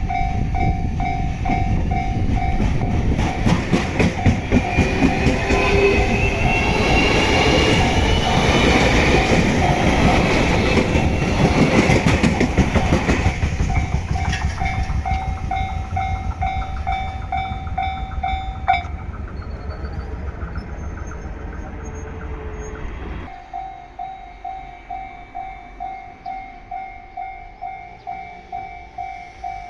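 Japanese level-crossing warning bell ringing in a steady pulse while an electric train passes over the crossing, its wheels clacking over the rail joints and its motors giving a rising whine. The bell stops a little over halfway through, the train's rumble fades, and a few seconds later the bell starts ringing again.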